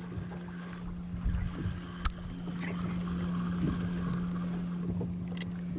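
Sounds of a small boat lying at anchor: water and wind noise, a steady low hum, a few soft knocks, and one sharp click about two seconds in.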